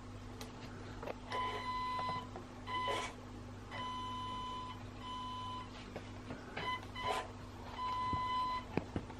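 Electronic beeps of one pitch, repeated at irregular lengths, from an HG 1/16 Land Cruiser RC truck's electronics, with short whirring bursts and clicks as the drivetrain twitches without driving off. This is the sign of a fault: the truck moves only a little forward and only jerks in reverse.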